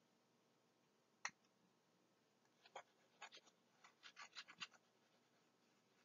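Faint clicks and scratches of a stylus on a tablet, used to annotate and erase a slide: one sharp click about a second in, then a quick run of about ten short taps near the middle.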